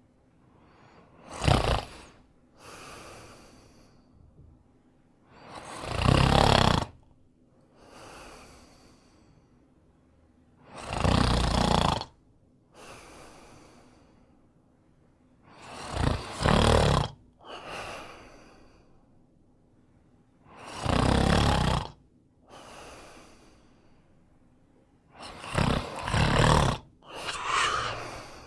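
A person snoring slowly and regularly, a loud snore about every five seconds, each followed a second or so later by a quieter breath.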